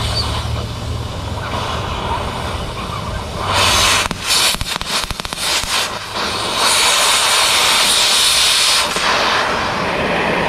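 Oxy-acetylene cutting torch: the preheat flame burning steadily, then about three and a half seconds in the cutting oxygen is opened with a loud hiss that stops and starts a few times, followed by a steady blast of a couple of seconds as the broken drill bit is washed out of the stainless steel, easing off near the end.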